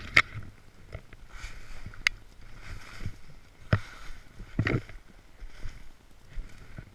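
Snowboard sliding and carving through snow: hissing swishes that swell and fade with each turn. A few sharp clicks and knocks cut through, one just after the start, one about two seconds in, and two more between about three and a half and five seconds.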